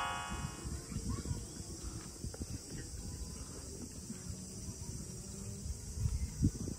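Outdoor ambience: a steady high insect chorus with irregular low wind rumble on the microphone. The tail of a rising chime jingle fades out at the very start.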